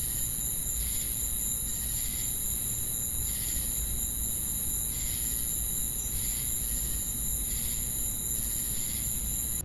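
Insects chirring in a steady high-pitched chorus, with a softer pulsing call repeating irregularly about once or twice a second over a low rumble.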